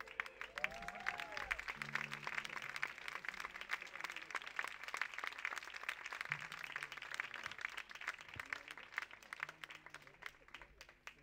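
Audience applauding at the end of a song, dense clapping that thins out toward the end, with a brief whistle about a second in.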